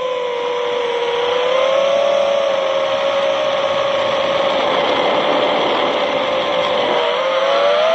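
FPV quadcopter's brushless motors and propellers whining steadily in flight, their pitch drifting with the throttle, dipping and then rising near the end. Wind rushes over the onboard camera's microphone, heaviest midway.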